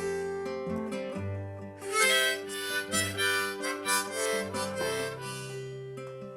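Harmonica playing a melody over acoustic guitar and bass in an instrumental break of a folk song, with a quick run of bright notes in the middle.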